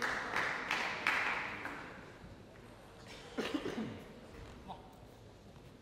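Scattered audience clapping in a sports hall, dying away over about two seconds, then a single cough from the crowd about three and a half seconds in.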